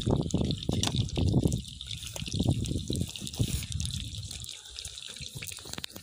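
Sucuk slices sizzling and crackling in a metal pan over a wood campfire, as a steady crackly hiss. Under it, low rumbling buffets are loudest in the first half and ease off toward the end.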